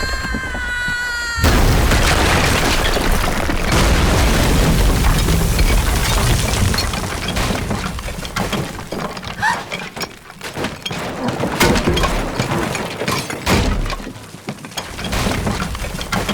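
A falling, cat-like wail is cut off about a second and a half in by a sudden loud crash. A long run of smashing, breaking and clattering follows, like furniture and crockery being destroyed in a fight.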